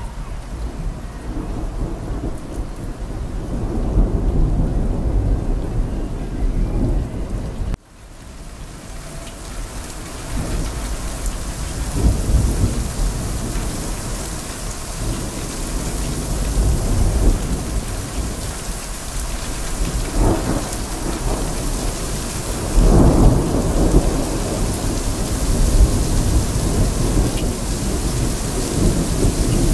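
Heavy rain falling steadily with rolling thunder rumbling through it; the deepest, loudest rumble comes about two-thirds of the way through. The sound cuts out for an instant about eight seconds in, and the rain comes back with a brighter hiss.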